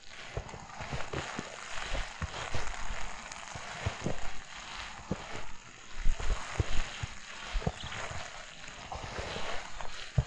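Footsteps crunching through fresh snow at a steady walking pace, a little under two steps a second.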